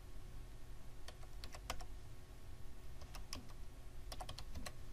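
Typing on a computer keyboard: irregular key clicks in short runs with brief pauses.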